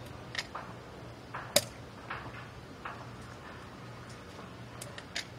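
A few scattered sharp clicks and knocks of hand work over a low steady hum, the loudest about a second and a half in.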